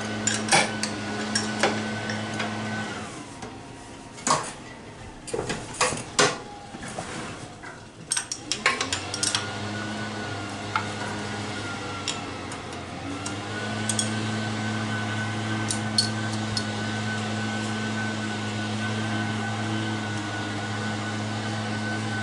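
Wrench and metal carburetor fittings clinking in sharp, scattered taps, mostly in the first nine seconds, as the carburetor's line and nuts are loosened for removal. Under it a steady machine hum with a high whine runs in the background, dropping away about three seconds in and returning from about nine seconds.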